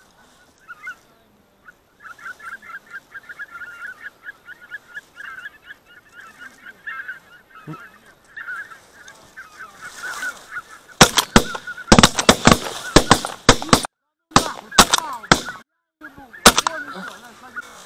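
A flock of white-fronted geese calling in rapid, overlapping honks that get louder. In the last few seconds a quick run of loud, sharp cracks breaks through the calls.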